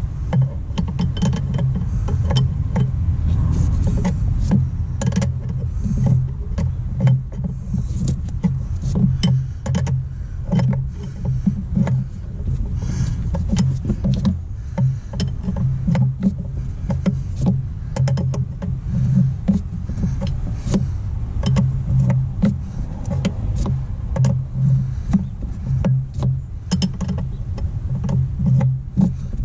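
Irregular metal clicks and taps of a wrench working a hose fitting on a power steering pump, over a steady low rumble.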